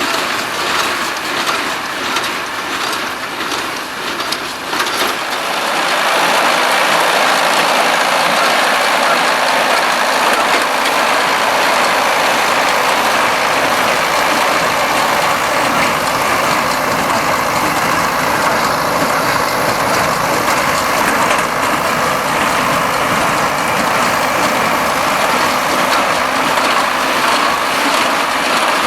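A Ford 7700 tractor running with a Claas conventional square baler at work, the baler's mechanism knocking in a steady rhythm. About five seconds in the sound becomes louder and steadier.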